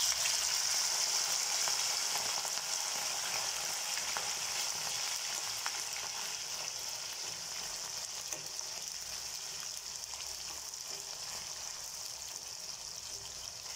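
Marinated boneless chicken pieces deep-frying in hot oil: a dense sizzle and crackle that starts suddenly as the chicken goes in and slowly eases off.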